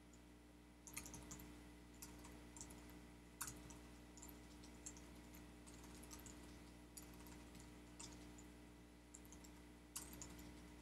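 Faint computer keyboard typing: irregular runs of key clicks, a few sharper than the rest, over a steady low electrical hum.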